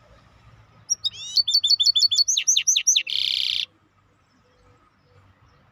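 A songbird, called the 'Maestro' bird, singing one phrase about a second in: a quick run of about a dozen clear, high notes that sweep downward, ending in a short harsh buzz.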